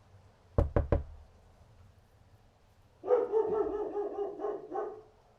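A dog barking: three sharp clicks in quick succession, then about two seconds of drawn-out, pulsing barking.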